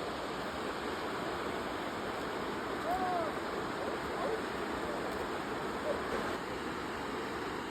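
A mountain river rushing over rapids: a steady, even rush of water.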